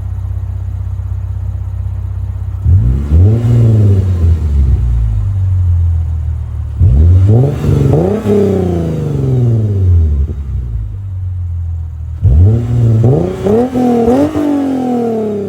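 Lexus IS350's 3.5-litre V6 idling, then blipped three times, each rev rising quickly and falling back to idle, the last a double blip.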